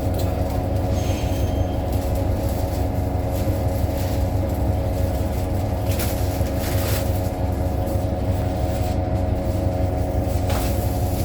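Inside a 2018 New Flyer XDE60 diesel-electric hybrid articulated bus under way: a steady drivetrain drone made of several held tones over a low rumble, with a few brief rattles about six and seven seconds in.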